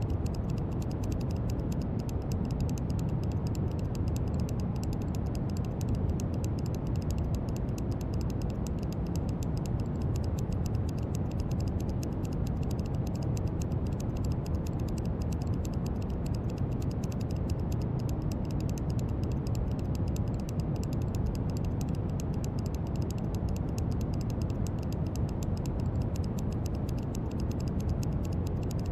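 Steady brown noise: an even, deep rushing hiss, strongest in the low end, with no changes in level.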